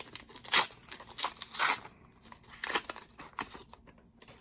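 Foil trading-card booster pack wrapper being crinkled and torn open, in several short rustling bursts that die away near the end.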